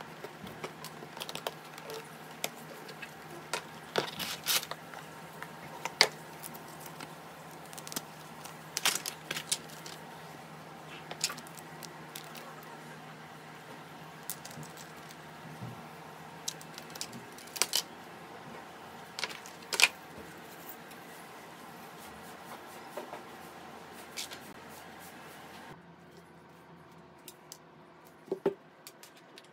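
Unboxing handling noise: a cardboard product box opened and plastic insert trays and packaging handled, giving irregular sharp clicks, taps and rustles over a steady hum. The hum drops away near the end, leaving a few more clicks.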